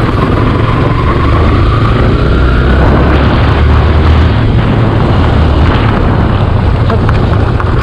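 Motorcycle running while being ridden, with heavy wind buffeting on the microphone; a faint rising whine comes in over the first few seconds.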